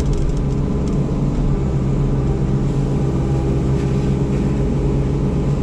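Yanmar SV100 excavator's diesel engine running steadily under load, a constant droning hum with no change in pitch.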